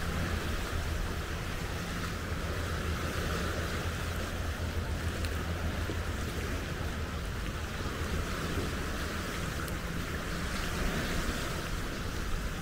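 Steady wash of wind and surf at the seashore, with wind rumbling on the microphone.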